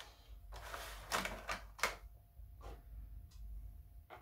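Clear plastic packaging of a model locomotive clicking and crackling as it is handled. A cluster of sharp clicks comes in the first two seconds, then a few fainter ones.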